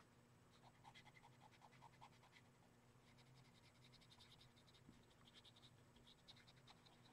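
Faint scratching of a pastel pencil on paper as it colours in short, quick strokes.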